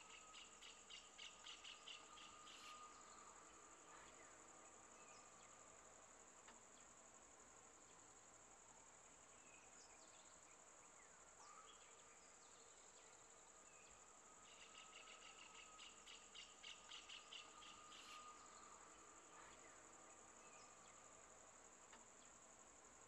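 Faint forest insect ambience: a steady high-pitched insect drone. A rapid pulsing call, about four pulses a second, comes twice: at the start and again about two-thirds of the way through.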